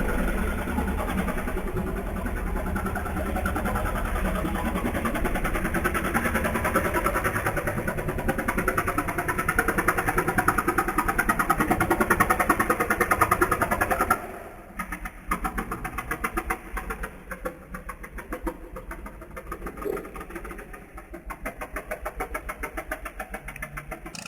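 Katinting longtail boat engine running hard at high revs. About fourteen seconds in the sound drops sharply to a quieter, pulsing engine note.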